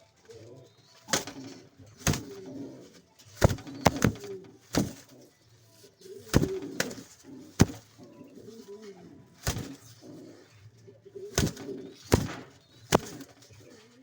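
Pouter pigeons cooing, a low, wavering coo that keeps going, broken by about a dozen sharp knocks or clicks at irregular intervals.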